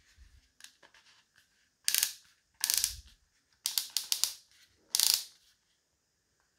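Rapid ratcheting clicks in four short runs, from a part of a Parkside 12 V cordless drill-driver being turned by hand.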